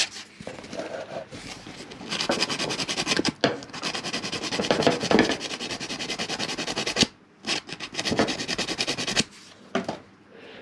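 Fine sandpaper scrubbed rapidly back and forth on a small metal electrical contact of a dryer motor switch, scraping off carbon buildup left by arcing. It comes in three spells of quick strokes, with short pauses between them, and stops shortly before the end.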